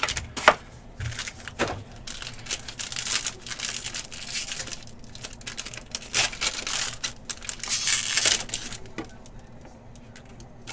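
Foil wrapper of a trading-card pack being torn open and crinkled by hand: a run of crackling rustles that dies down near the end.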